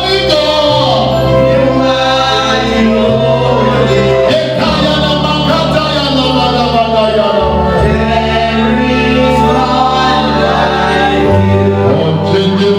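Gospel choir singing over music with sustained bass notes that change every few seconds.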